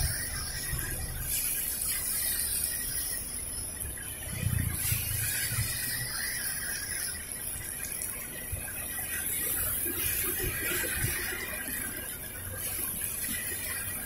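Heavy rain falling steadily, with traffic passing on the wet road and a low rumble about four seconds in.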